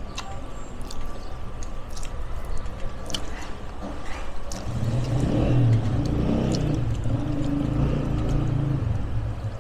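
A motor vehicle's engine running nearby, a low steady hum that grows louder about five seconds in and holds for several seconds, with a few light clicks throughout.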